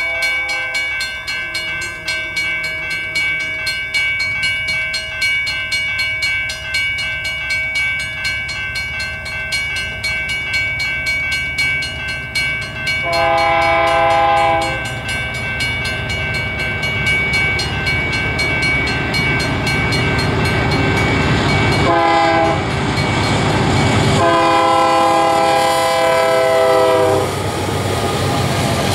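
Westbound Union Pacific grain train approaching behind a GE C44AC-CTE lead locomotive, its multi-note air horn sounding: faint at first, then one long blast about halfway, a short blast and a long blast near the end. Under the horn, the rumble of the diesel locomotives and wheels grows louder as the lead units arrive.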